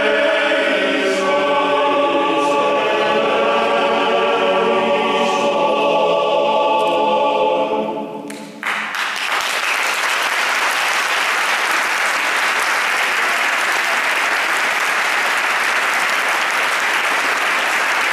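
Male choir singing a final chord that dies away about eight seconds in, then the audience applauds steadily.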